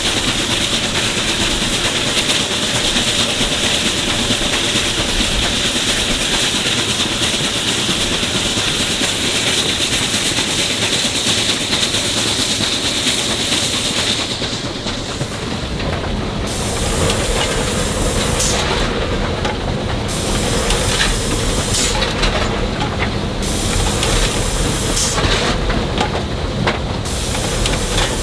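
Durango & Silverton K-28 steam locomotive No. 476 running with a loud, steady hiss of steam. About halfway through the hiss falls away, leaving a lower, steadier running sound with scattered sharp clicks.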